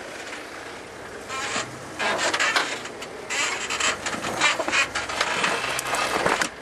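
Jeep JK crawling through brush and rock, with irregular scraping and crackling as branches and rock rub against the vehicle; the engine is only a faint low hum beneath it. The scraping comes in patches, starting about a second in and growing denser from about two seconds on.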